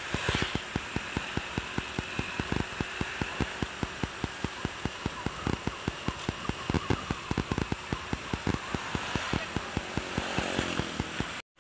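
Riding on a motorcycle: wind buffets the microphone in rapid, irregular low thumps over the steady noise of the engine and road. The sound cuts out for an instant near the end.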